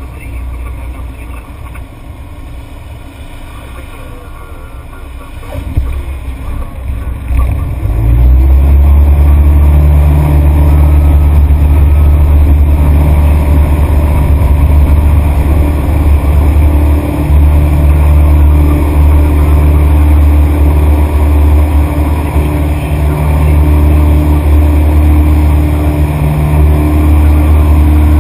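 Light aircraft engine at low power, then climbing to full power about six to eight seconds in and running loud and steady with a deep even drone: power reapplied to take off again during a touch-and-go.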